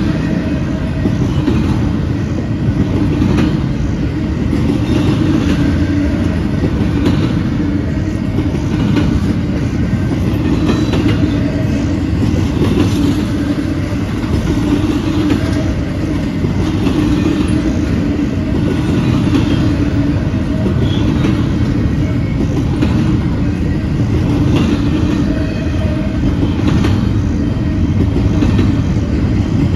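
Double-stack intermodal freight cars rolling past at steady speed: a loud, continuous rumble of steel wheels on rail, with recurring clicks as the wheels cross rail joints.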